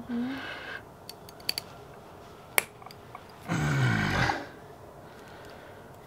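A man grunting with effort as he squeezes multitool wire cutters onto a heavy nail: a short grunt at the start and a longer strained grunt with falling pitch a little past halfway. In between, a few small metallic clicks and one sharp click come from the cutter jaws on the nail.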